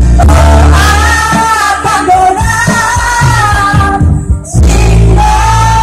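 A woman singing a pop song with long held notes over a band with heavy bass. The music dips briefly about four seconds in.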